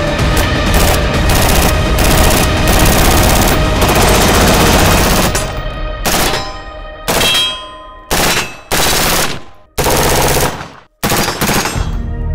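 Full-auto bursts from a suppressed AR-15 over background music. In the second half the firing breaks into several separate bursts of about a second each, with short gaps between them.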